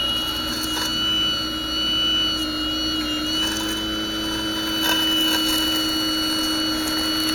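Radio-controlled scale model Hitachi excavator running as its bucket digs into sand: a steady motor whine made of several high tones, shifting a little in pitch now and then, with a few faint clicks.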